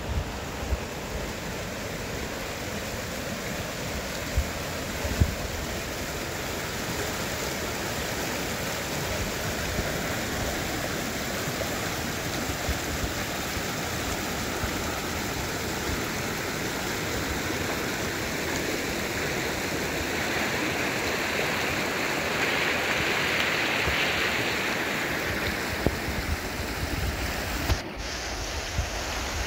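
Shallow mountain stream rushing steadily over stones, with a brief dropout near the end.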